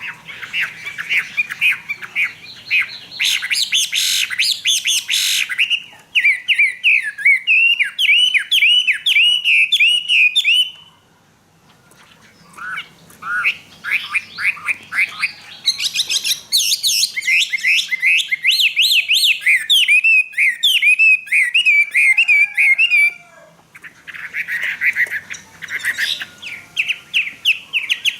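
Caged Chinese hwamei singing loudly: long phrases of fast, repeated, sliding whistled notes, broken by a short pause about eleven seconds in and another near twenty-three seconds.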